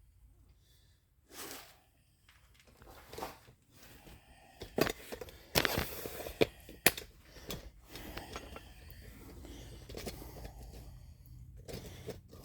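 Hand work at a truck's rear brake during a gravity bleed: a few sharp clicks and knocks with a short rustle about five to seven seconds in, then a faint steady low hum.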